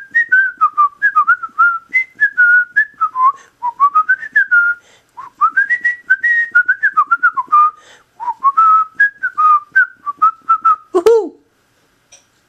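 A person whistling a tune alone, in quick short notes. Near the end it drops in a falling swoop, followed by a sharp click.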